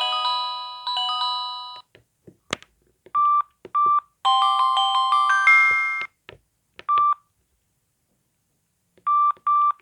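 Samsung SGH-X660 mobile phone playing a polyphonic ringtone that stops a couple of seconds in. Key clicks and short keypad beeps follow as the ringtones are scrolled through, with a second short ringtone preview in the middle. Three quick beeps come near the end.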